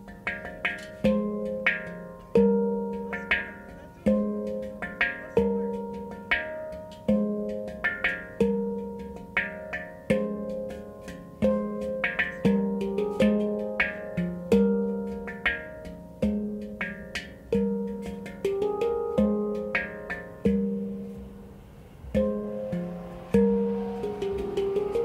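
F minor handpan played by hand: a steady rhythmic groove of struck notes that ring on, with a deep low note returning every one and a half to two seconds and quicker higher notes in between.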